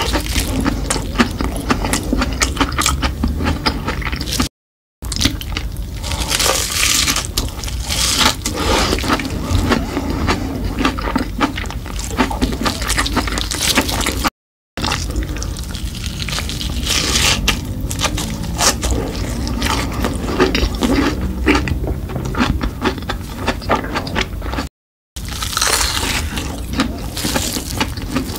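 Close-miked eating: crunching through a crisp red crumb-coated fried snack and chewing it wetly, a dense run of crackles and crunches. The sound drops to silence for a split second three times, at cuts between clips.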